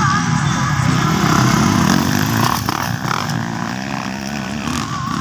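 Motocross dirt bikes running and revving in a race, with engine pitch rising and falling.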